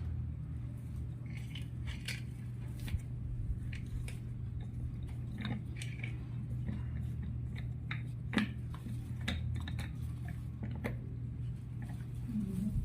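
Scattered light clicks and taps of chair parts being handled and fitted together during assembly, over a steady low hum.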